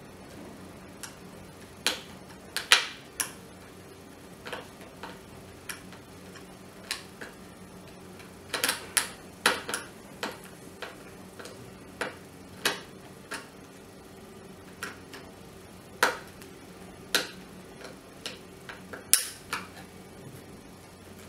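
Hand screwdriver driving screws into the plastic housing of a dry iron: irregular sharp clicks and ticks of the tool and plastic, coming in small clusters.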